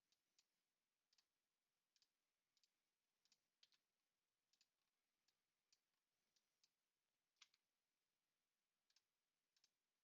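Faint computer mouse clicks at irregular intervals, some in quick pairs, over near silence.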